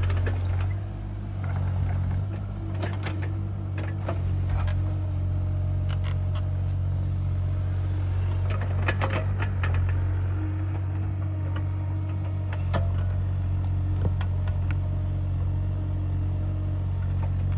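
Bobcat E37 mini excavator's diesel engine running steadily, with scattered clicks and knocks from the machine's work over it.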